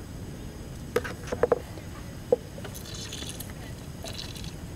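A few sharp knocks of a plastic cup being set down and handled on a wooden picnic table, then a soft wet squish and rustle as a cut citrus half is squeezed by hand into the cup near the end.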